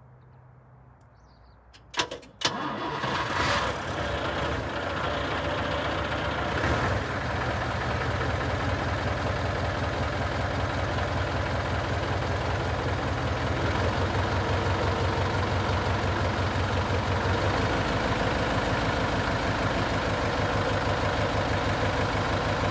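Scania 142 E truck's 14-litre V8 diesel being started: the starter cranks briefly about two seconds in, the engine catches at once, flares up a couple of times, then settles into a steady idle.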